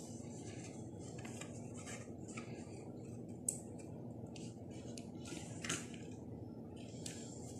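Paper card rustling and scraping as yarn is threaded through its punched holes and pulled through, in short scratchy bursts with a sharp tick about three and a half seconds in and another near six seconds.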